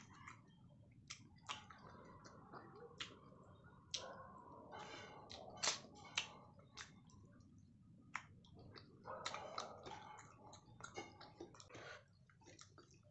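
Close-miked mouth sounds of someone chewing a mouthful of rice and fish: irregular wet clicks and smacks, with a few softer rustling stretches.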